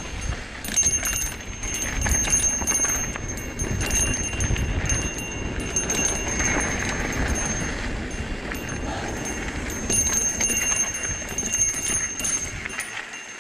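Trek Fuel EX 7 mountain bike coasting fast down dirt singletrack: wind buffets the microphone with a low rumble while the bike's freehub ticks and the frame and parts rattle over the trail. The wind rumble drops away near the end.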